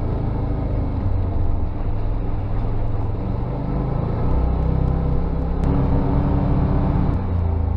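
Side-by-side UTV engine running as the machine drives along a trail, its note stepping up about four seconds in.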